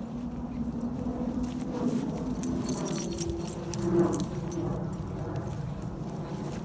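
Metal jingling and clinking of dog lead clips and tags as the dogs move on the lead, with scattered small clicks and a low steady tone underneath.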